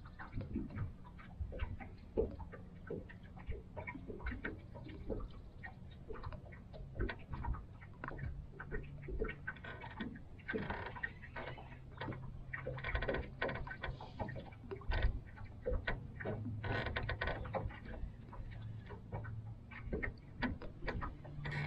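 Small waves lapping against the boat's hull in a dense run of irregular clicks and slaps, over the low hum of an electric trolling motor whose pitch steps up and down a few times.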